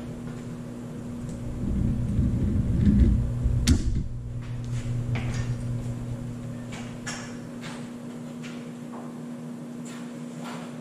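A bicycle being taken out of a bench-mounted repair-stand clamp and moved: low knocking and rumbling as the frame is freed and lifted, with a sharp click near four seconds in, then scattered light clicks and rattles as the bike is wheeled away.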